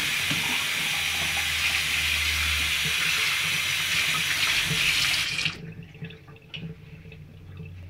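Kitchen sink tap running, with water splashing over a Silkie chicken being rinsed. The tap is shut off about five and a half seconds in, and the rushing stops suddenly.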